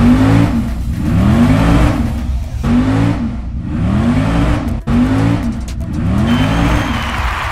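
Car engine revving up and falling back again and again in a regular pattern, about once a second, over a steady hiss.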